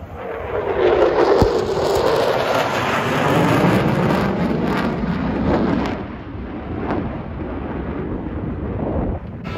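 Jet aircraft flying past low: a loud roar that swells about a second in, its tone sweeping down and back up as it goes by, then easing off slightly.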